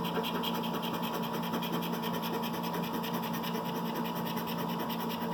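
Lottery scratch-off ticket, a $30 Cash Explosion, being scratched off in quick, even back-and-forth strokes that make a continuous rasp. A steady low hum runs underneath.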